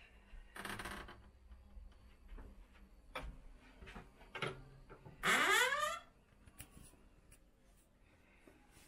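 An old wooden plank door with an iron thumb latch is opened: a couple of latch clicks, then about five seconds in one short hinge squeak that falls in pitch as the door swings.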